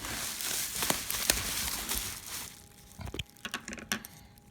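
Plastic packaging and bubble wrap crinkling as it is handled, dying down about halfway through to a few scattered light clicks and taps.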